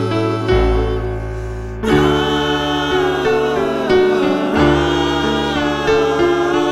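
Music: several voices singing over instrumental accompaniment, with held chords that change every second or so and a fresh loud entry about two seconds in.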